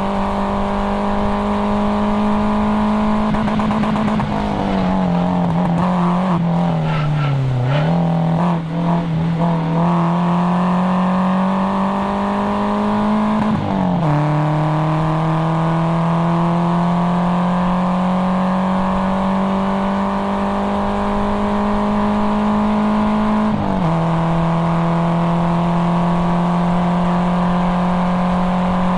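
Nissan KA24DE four-cylinder engine of a 1997 240SX pulling hard through a cat-back exhaust on a track run. About four seconds in, the revs fall and waver for a few seconds. They then climb steadily, with a sharp drop at an upshift about halfway through and again about five seconds before the end, before climbing once more.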